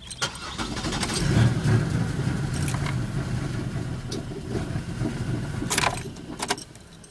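2000 Pontiac Bonneville SE's 3.8-litre V6 cranking on the starter for about six and a half seconds without catching, then stopping, with a few sharp clicks near the end. It is a crank-but-no-start condition.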